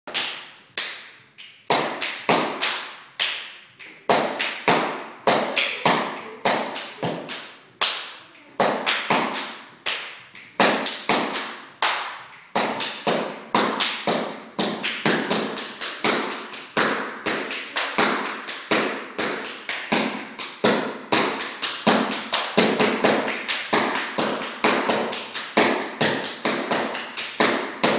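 Stepping: a dancer's rhythmic foot stomps and hand claps on a wooden studio floor, a few strikes a second in an uneven, syncopated pattern, each ringing briefly in the room.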